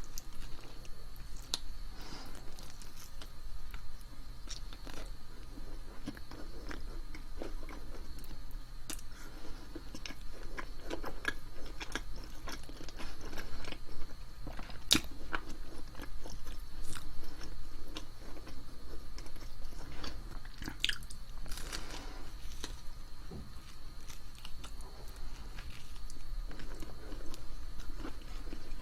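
Close-miked eating: a person biting and chewing food, with many small irregular crunches, clicks and wet mouth sounds.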